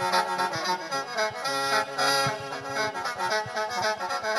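Khaen, the Isan bamboo free-reed mouth organ, playing a lively mor lam melody over sustained drone chords, backed by a steady drum beat.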